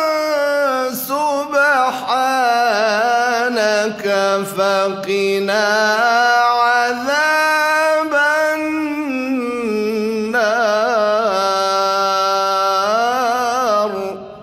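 A male qari reciting the Qur'an in long melismatic phrases, his voice gliding and warbling through quick ornaments in maqam Sikah, just before he moves on to maqam Hijaz. The phrases break off briefly a few times and end shortly before the close.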